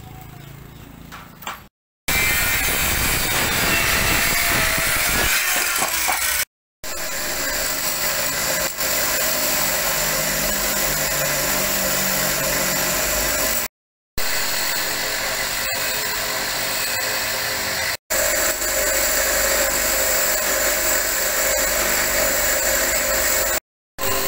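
Electric motor spinning a wooden disc while a flat steel tool held on a rest scrapes and cuts its edge true: a steady, loud running and grinding of wood being turned. It comes in several stretches broken by abrupt short silences, after a quieter first two seconds.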